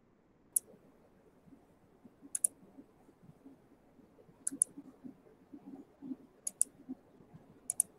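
Sharp clicks, one and then four close double clicks spaced roughly two seconds apart, over faint low background noise.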